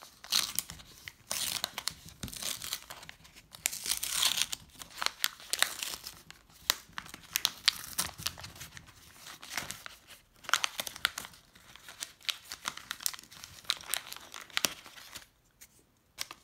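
A Flesh and Blood Dynasty booster pack wrapper being torn open and peeled back by hand, crinkling and crackling in quick irregular flurries that thin out near the end.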